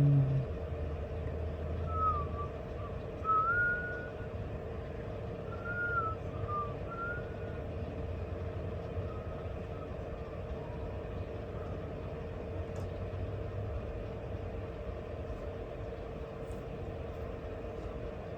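Steady hum with a constant tone under a low rumble that fades in and out. Over it, a handful of short, soft whistled notes glide up and down during the first several seconds.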